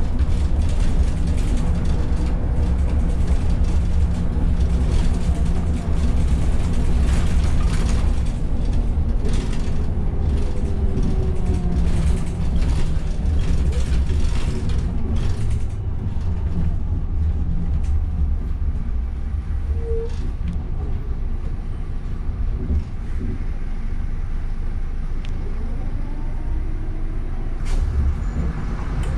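Interior of a Van Hool A300 city bus on the move: steady low engine and road rumble, with many short rattles and clicks from the body and fittings, most of them in the first half.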